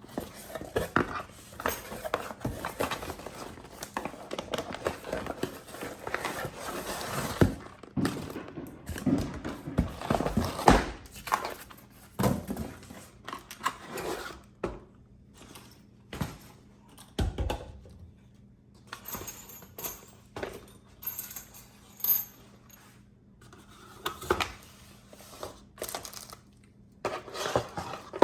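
Metal hand tools clinking and clattering as a tool kit is unpacked and handled, with many short scattered knocks.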